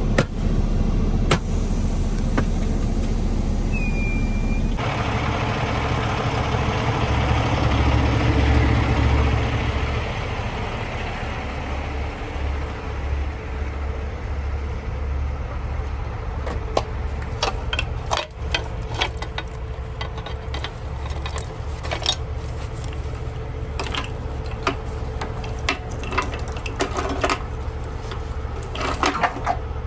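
Log truck's diesel engine running steadily, with a rushing noise in the first third. From about halfway through come many sharp metal clanks and clicks as the trailer hitch gear is handled.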